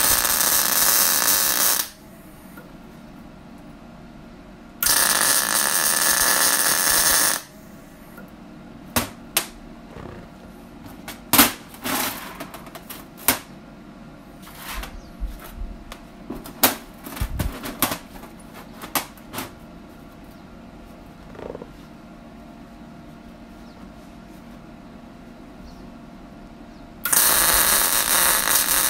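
Wire-feed (MIG) welder arc crackling in three bursts of about two seconds each, at the start, about five seconds in and near the end, tack-welding metal spacers in place. In between come clinks and knocks of metal parts being handled on the steel welding table.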